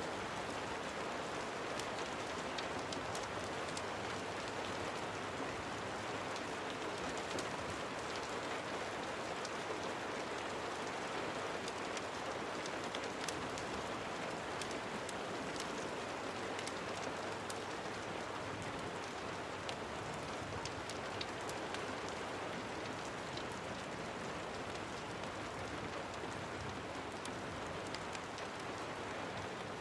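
Steady rain falling, with many small sharp ticks scattered through it.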